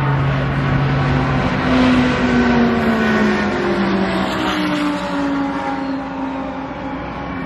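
A race car at full speed passing by. Its engine note slides steadily down in pitch as it goes past, loudest about two seconds in.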